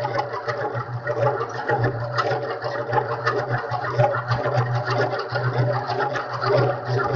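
Antique hand-cranked galvanized tin honey extractor spinning honeycomb frames: a steady whir from the crank gearing and drum, with fast, dense rattling clicks.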